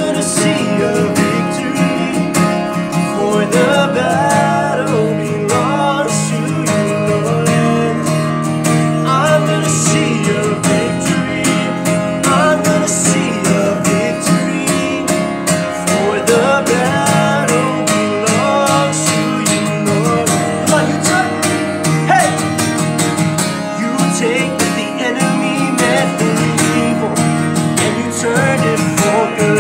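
Steel-string acoustic guitar strummed steadily, with a man singing a worship song over it.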